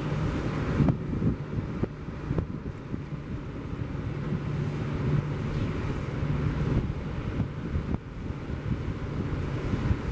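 Wind buffeting the microphone: a low, rumbling noise that rises and falls in gusts.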